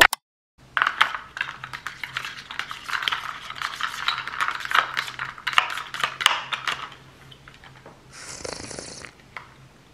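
Ice cubes clinking and rattling in a plastic cup of iced coffee as a straw stirs them, a rapid run of small clicks lasting several seconds. About eight seconds in, a short sip through the straw.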